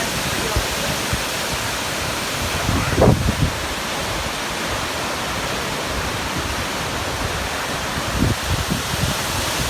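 Waterfall: a steady rush of falling water, with brief low bumps about three and eight seconds in.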